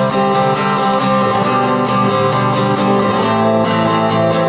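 Acoustic guitar strummed in a steady rhythm, a live country-song accompaniment in an instrumental gap between sung lines.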